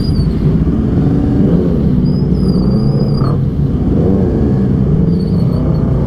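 Honda CBR250RR's parallel-twin engine running at low revs as the bike creeps along at walking pace, its pitch rising and falling a little with the throttle.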